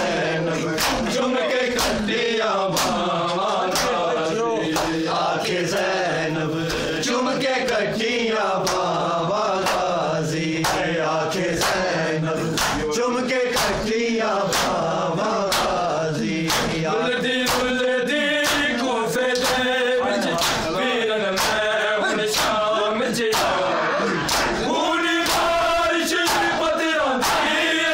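A group of men chanting a Shia mourning noha in unison while beating their bare chests with open hands: sharp, evenly spaced slaps in a steady rhythm under the chant.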